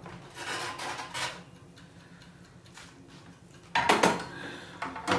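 Oven door pulled open and a metal roasting tray with a wire rack slid out, then the tray set down on the gas hob's pan supports with a loud metal clatter about four seconds in, and a smaller knock near the end.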